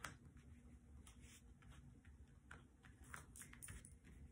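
Near silence with faint scattered crackles as a fingertip presses and rubs on the covered surface of a diamond painting canvas.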